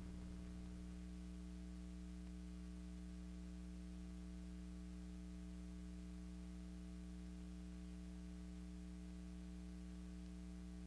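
Steady electrical mains hum with a faint hiss, the only sound on the soundtrack of a silent film; it does not change.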